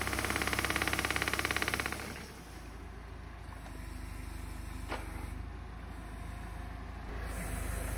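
Tractor-mounted hydraulic olive trunk shaker vibrating an olive tree: a loud, rapid pulsing rattle for about two seconds, which then drops away to the tractor's engine running steadily. A single sharp click about five seconds in, and the level rises again near the end.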